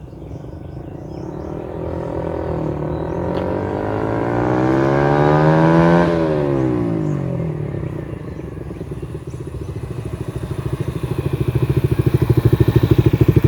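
Suzuki Raider 150 FI single-cylinder four-stroke motorcycle passing at speed, its engine note climbing as it nears and dropping sharply in pitch as it goes by, about six seconds in. Then the motorcycle comes back close at low revs with an even throb that grows louder toward the end.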